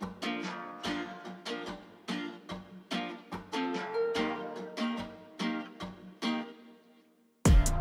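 Background music: a steady run of plucked-string notes that fades out about seven seconds in, then a louder track with drum hits starts just before the end.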